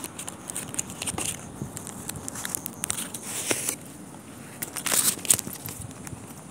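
Crackling, rustling handling noise from a phone held and moved close against clothing. Several louder rushes of noise come in, the loudest about five seconds in.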